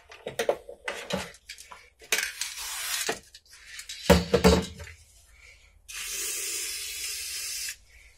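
Small metal brake master cylinder parts clinking and clattering against a metal parts tray, with a louder knock about four seconds in. Two bursts of hissing, the second steady for nearly two seconds near the end.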